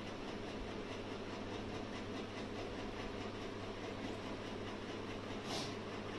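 Steady low background hum and hiss, with one short hiss about five and a half seconds in.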